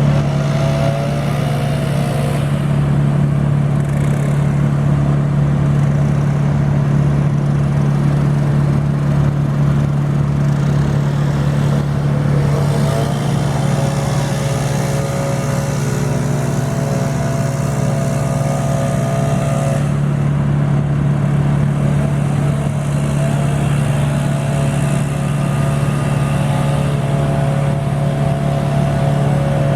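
Engine of tree-removal machinery running steadily and loudly, with a higher whine that comes and goes above it.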